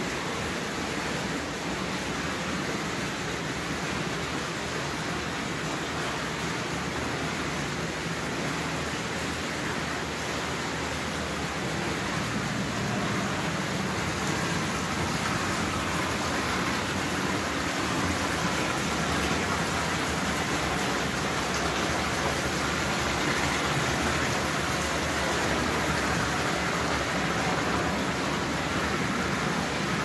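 Marble indoor waterfall fountain: water sheeting over stone tiles and splashing into its shallow pool in a steady, even rush. It grows a little louder about halfway through.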